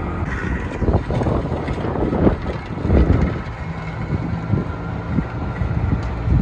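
Bobcat E10 mini excavator's engine running under load while its Geko stump grinder attachment grinds into a stump, with irregular louder grinding surges every second or so over a steady engine drone.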